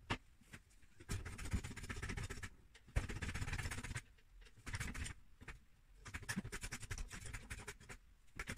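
Trolley jack being pumped up by its long handle to raise a car's rear end: repeated stretches of scraping, clicking strokes with short pauses between them, and a sharp knock about three seconds in.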